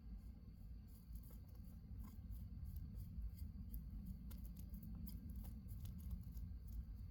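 Homemade sawdust-and-paraffin-wax fire starter burning with a tall flame: a low steady rumble of fire with scattered small crackles and pops that start about a second in.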